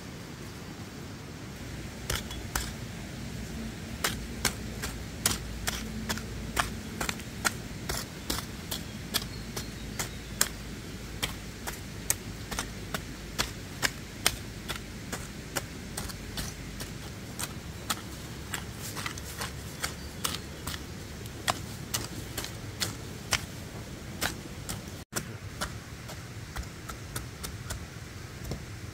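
Repeated sharp taps or clicks, roughly two a second and fairly even, over a steady low background hum; they begin a couple of seconds in and stop near the end.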